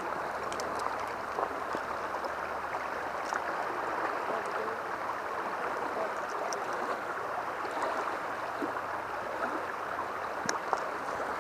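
Nisqually River flowing over the riverbed: a steady rush of water with a few faint ticks in it.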